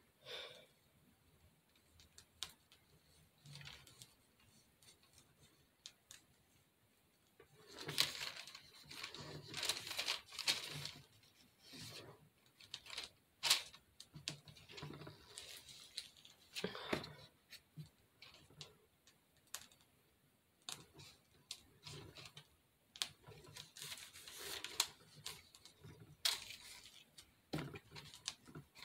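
Plastic piping bag crinkling and rustling in the hand as spackle is squeezed out through the tip, in irregular bursts with a few sharp clicks.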